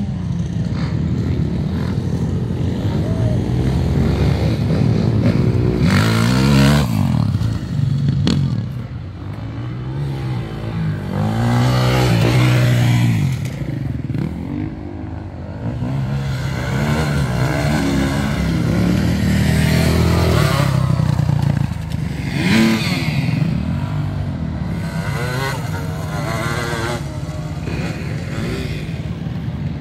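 Enduro dirt bikes racing on a dirt course, their engines revving up and down in pitch as they ride past, louder and quieter in turn.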